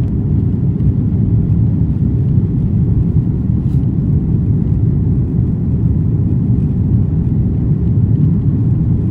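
Steady, loud rumble of jet engine and airflow noise inside an airliner cabin during the climb after takeoff.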